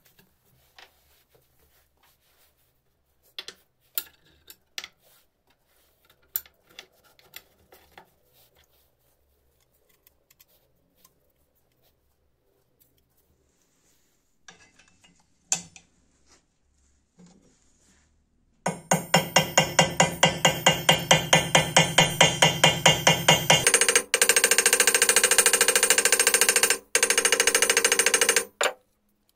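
Scattered light taps and handling clicks, then about two-thirds of the way in a small hammer starts striking rapidly and evenly, about five blows a second with a ringing note, peening the brass rivet pins of a brass knife guard on an anvil. Near the end the blows run together into a near-continuous rattle.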